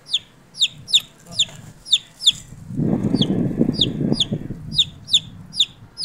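A chick peeping steadily, about three high peeps a second, each falling in pitch: the loud, repeated peeping of a distressed chick. A low rustling noise covers the middle two seconds or so.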